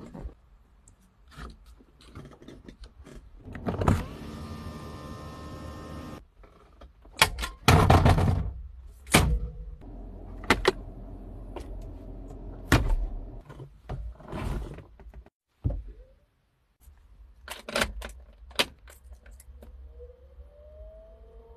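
A string of car-interior mechanism sounds: the hand-cranked window winder of a 1965 car, an electric window motor whirring for about two seconds, and several loud thunks and clicks of latches and panels. Keys rattle at the ignition near the end.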